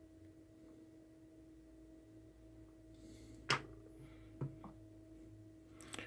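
Quiet workbench with a faint steady hum. A sharp click comes about three and a half seconds in, then two fainter knocks about a second later, as the small lighter is let go and set down on the bench.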